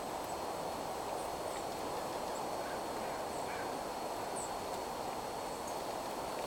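Steady low rushing background noise, with a few faint, short, high chirps of small birds scattered through it.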